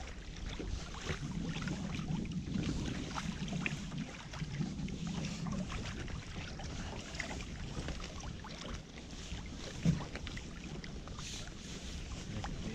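Wet drift net hauled by hand over a boat's gunwale: water dripping and trickling off the mesh, with scattered small taps of floats and net against the hull over a low rumble of wind and water. One louder knock comes about ten seconds in.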